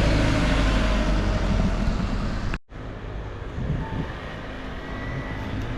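Steady low rumble and noise of a moving vehicle. It cuts off abruptly a little over halfway through and resumes as a quieter stretch of the same kind of noise.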